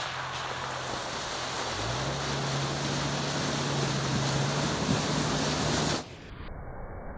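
Jeep Cherokee XJ fording a creek: water splashing and rushing around the front of the Jeep as it drives through, growing louder as it comes closer, with the engine's steady low hum underneath. About six seconds in, the sound suddenly drops and turns duller.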